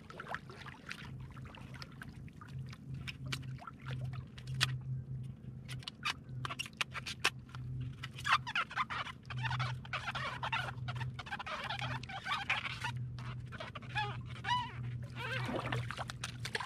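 Styrofoam float block squeaking and crackling as it is worked by hand. Scattered sharp clicks come first, then denser squeaky runs from about halfway through, over a steady low hum.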